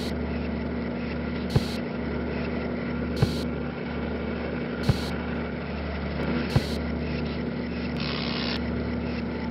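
Steady factory-machine hum with a sharp knock repeating about every one and a half seconds, and a short electric crackle near the end.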